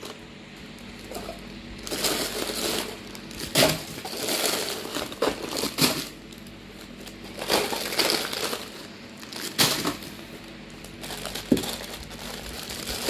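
Paper grocery bag and plastic snack wrappers rustling and crinkling in irregular spells as a hand rummages through the packets and lifts them out, with a few sharp clicks.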